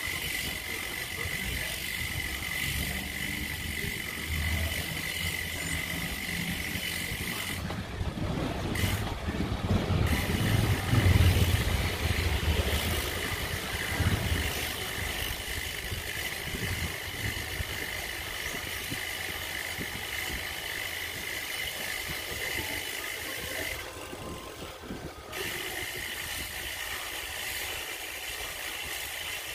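Street ambience with a motor vehicle passing on the road, swelling to its loudest about eleven seconds in and fading by about fourteen seconds. Underneath runs a steady high-pitched whine that cuts out briefly twice.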